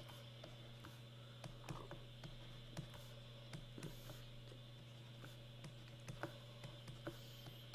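Faint, irregular taps and clicks of a stylus on a drawing tablet as letters are written by hand, over a steady low hum.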